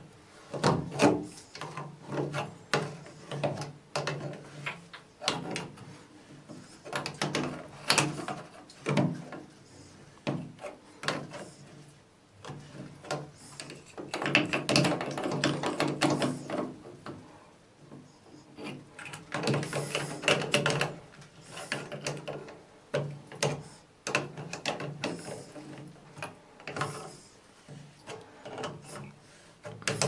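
Irregular metallic clicks, knocks and scraping of an adjustable wrench turning the threaded inlet fittings of a wall-mounted bath mixer.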